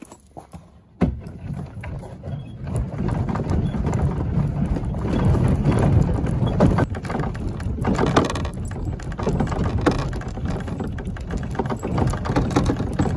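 Plastic kayak hull dragged over gravel: a continuous crunching scrape of loose stones, starting with a bump about a second in.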